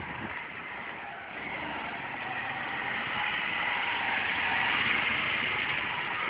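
A car passing on the street, its engine and tyre noise growing louder to a peak about five seconds in, then easing slightly.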